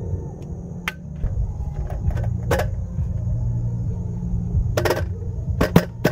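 Folding camp table being set up: the slats of the roll-up tabletop and the folding leg frame knock and clack together as the top is unrolled and set onto the frame. A few separate sharp clacks, then several in quick succession near the end, over a steady low rumble.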